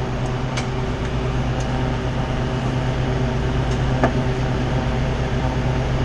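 Steady hum of a walk-in freezer's evaporator fan motors running, with a strong low mains-type tone. A couple of light knocks as a hand works behind the coil.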